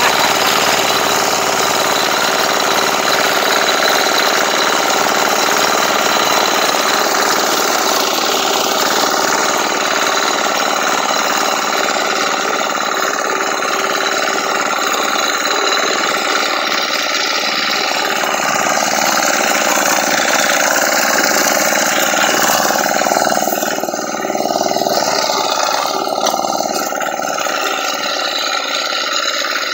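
Small engine of a two-wheel walking tractor, converted to ride-on, running steadily under load while its reciprocating sickle-bar mower cuts grass.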